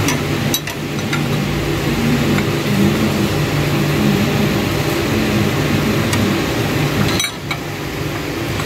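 Steady mechanical hum with a few faint metal clicks as a wrench tightens the brass fitting of an oil pressure gauge hose on the engine block.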